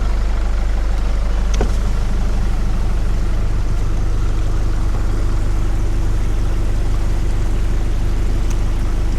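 Four-wheel drive vehicle driving along a dirt track: a steady low drone of engine and road noise, with a single short knock about one and a half seconds in.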